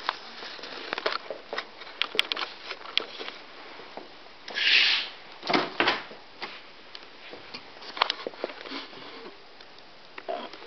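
Camera handling noise and footsteps with scattered clicks and knocks. About halfway, a short swishing hiss is followed by a thump.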